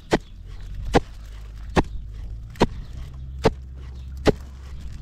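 Six sharp knocks at an even pace, a little more than one a second, over a steady low hum: a hard object being struck repeatedly.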